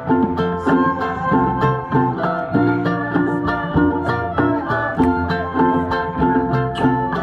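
Keroncong band playing: plucked strings in an even, quick rhythm, with violin.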